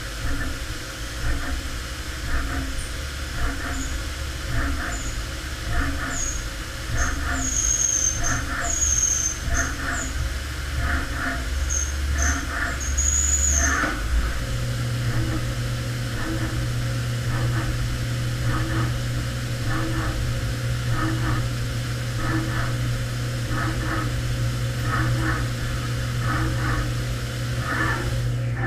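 CNC vertical mill cutting a V8 adapter plate under flood coolant, with a regular pulsing of the cut a little faster than once a second. Short high squeals come and go in the first half, and about halfway through a steady low hum sets in.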